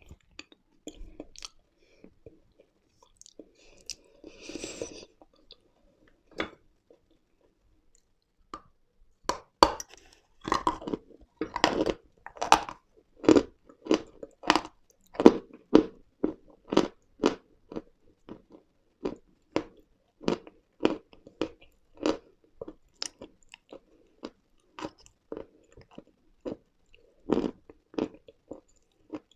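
Close-miked crunching and chewing of dry edible mineral pieces, powdery chalk-like lumps being bitten and ground between the teeth. A few small crackles and one longer gritty crunch come first, then about a third of the way in a steady run of crisp chewing crunches sets in, about one and a half a second.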